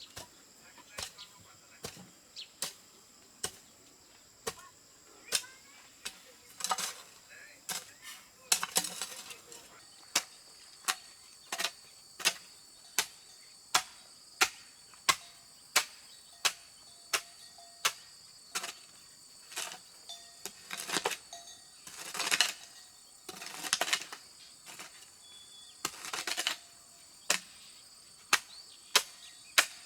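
Repeated sharp knocks, about one to two a second, like a tool striking material, with a few longer scraping sounds in between. Insects call steadily in the background as two thin high tones.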